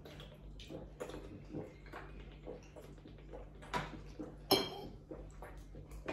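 Quiet table sounds of eating and drinking: scattered small clicks of cutlery on plates and swallowing from a plastic water bottle, with one sharper click about four and a half seconds in.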